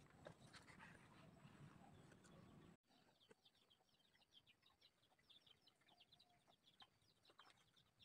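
Near silence: faint outdoor background, with faint rapid high chirping after a brief dropout about three seconds in.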